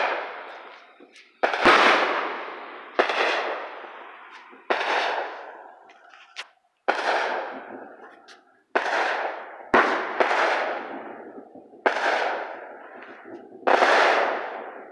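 Fireworks going off one after another: about eight sharp bangs, one every one and a half to two seconds, each trailing off over a second or two.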